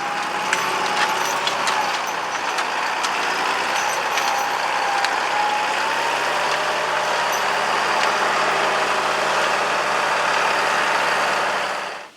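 Tractor engine running steadily with a wavering high whine over it and a few faint clicks; the sound cuts off abruptly near the end.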